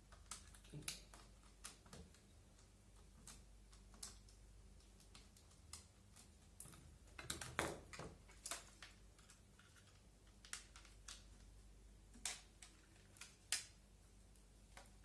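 Irregular light clicks and taps as a screw is undone with a Phillips screwdriver and the parts of an airsoft MP5 are handled, with a cluster of louder knocks about halfway through. A faint low hum sits underneath.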